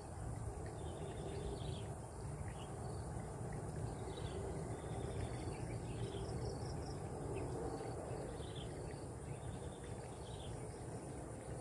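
Insects chirring in one steady, high-pitched tone, over a low rumble, with a few short high chirps scattered through.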